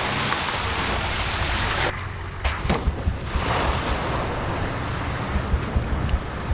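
Wind blowing across the microphone: a loud, even rushing hiss that drops away about two seconds in, followed by irregular low thuds of wind buffeting.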